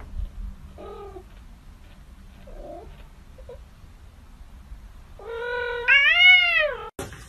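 A cat giving a few faint short mews, then one long, loud, drawn-out meow that rises and then falls in pitch near the end.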